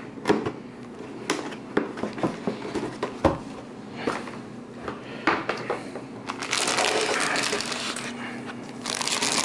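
Cardboard packaging handled with scattered knocks and taps on a wooden table. Then, from about six and a half seconds in, a dense crinkling of the motherboard's silvery anti-static bag for about two seconds.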